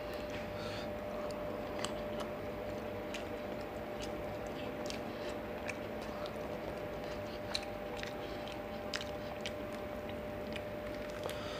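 A person chewing a mouthful of fried fish and rice close to the microphone, with scattered short, sharp mouth clicks and smacks. Fingers pick at the fried fish on the plate, over a steady faint background hum.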